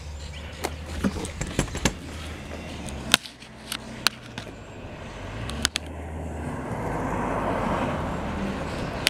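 A car driving past on the road, its engine and tyre noise rising to a peak near the end and then easing. Sharp clicks and knocks from the handheld camera being moved run through the first two-thirds.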